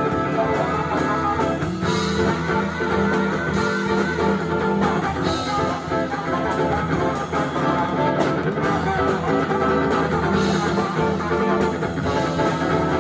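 Live funk band playing an instrumental passage, with electric guitar out front over bass and drums.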